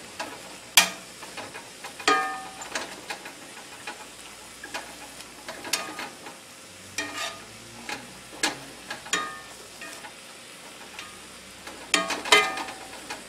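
Stir-frying in a cast-iron skillet: a slotted metal spatula scrapes and clanks against the pan at irregular intervals, some strikes ringing briefly, over a steady low sizzle of the frying meat and vegetables. The sharpest clank comes about a second in, with a cluster of strikes near the end.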